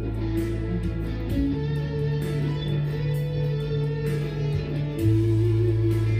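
Electric guitar improvising a melodic line in intervals in A major (A Ionian), over a sustained low backing chord that shifts up about a second in and returns about five seconds in.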